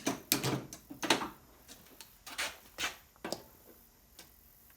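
A series of sharp knocks and clatters, like things being handled or set down, with the loudest about a second in and a few more spaced out after it, fading toward the end.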